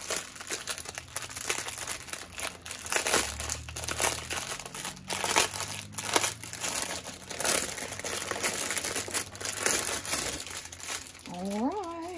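Small plastic bags of diamond-painting drills crinkling as they are handled, in repeated irregular bursts.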